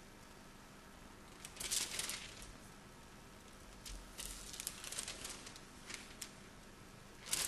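Thin Bible pages rustling and crinkling as they are turned and handled, in short bursts: once about two seconds in, a longer run from about four to five and a half seconds, and a sharp one near the end.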